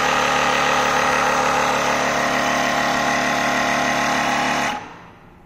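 Air compressor of a Motomaster Eliminator booster pack running steadily while inflating a car tire, then switching off near the end and winding down within a fraction of a second.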